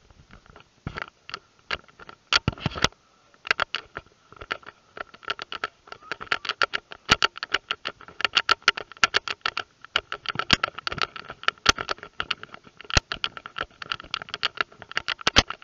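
A rapid, irregular run of sharp clicks and taps, thinning out briefly in the first few seconds and thickest from the middle on, over a faint steady tone.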